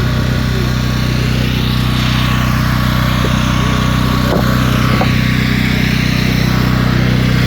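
An engine running steadily at an even, unchanging speed, like an idle, with a low hum that holds throughout.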